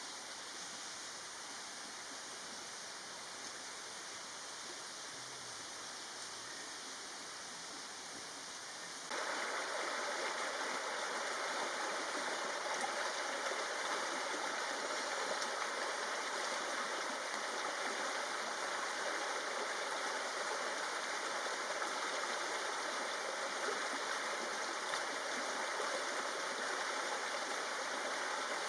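Steady rush of running stream water, which turns suddenly louder about nine seconds in.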